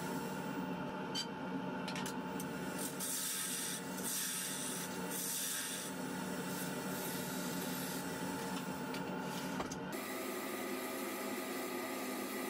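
Wood lathe running with a steady hum while a gloved hand rubs the spinning wooden lid, a hiss of friction coming and going in the first half.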